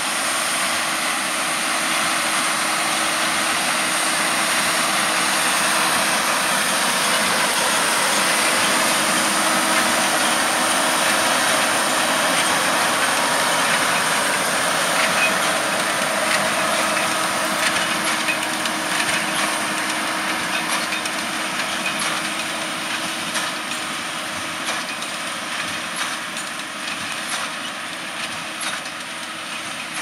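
JCB Fastrac 4220 tractor working a Krone BiGPack 1290 HDP large square baler through straw: a steady machine hum with a constant low tone. It is loudest around the middle as it passes, then fades as it pulls away, with a regular clicking in the second half.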